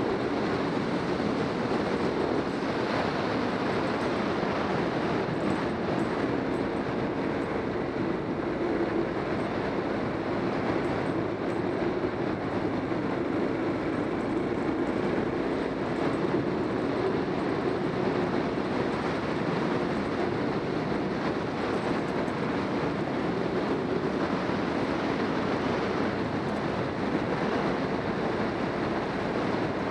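Motorcycle engine running steadily at cruising speed, mixed with wind and road noise on the camera microphone.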